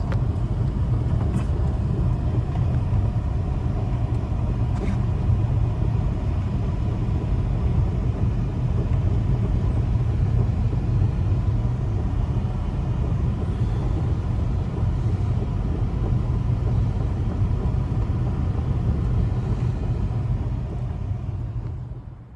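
Blizzard wind blowing hard, a steady deep rumble with no distinct tones, fading out near the end.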